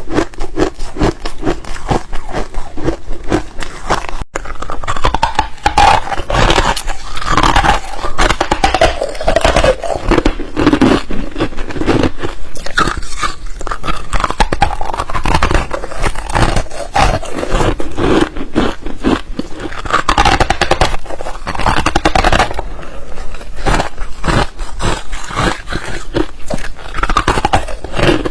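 Close-up crunching of hard frozen ice being bitten and chewed in quick, continuous crunches. Repeated squeaks slide down in pitch between the crunches, the squeak of dry, frosty ice against the teeth.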